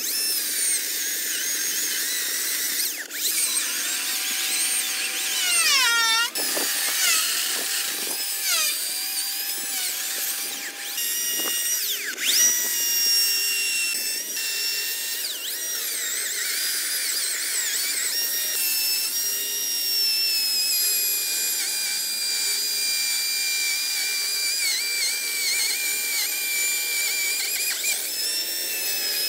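HART 40V Supercharge battery chainsaw carving into a log: a high electric-motor whine that holds steady, then dips sharply in pitch and recovers several times as the chain bites into the wood under load.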